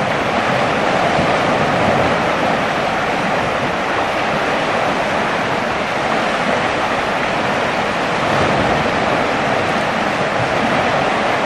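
Steady rush of a fast-flowing, flooded river.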